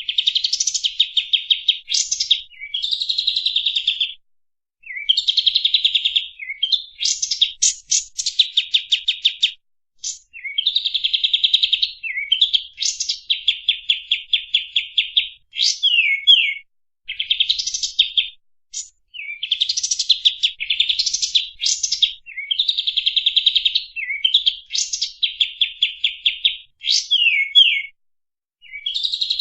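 Kapas tembak songbird singing its 'tembak' song: fast, tightly packed series of sharp, clear notes, delivered in phrases of one to two seconds with short pauses between them.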